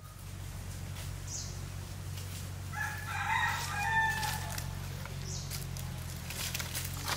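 A rooster crows once, a pitched call lasting about a second and a half, over a steady low hum. Footsteps crunch on dry leaves near the end.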